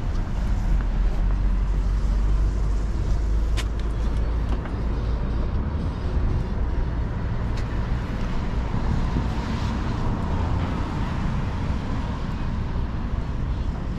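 Outdoor city ambience: a steady low rumble of road traffic under a faint hiss, with one sharp click about three and a half seconds in.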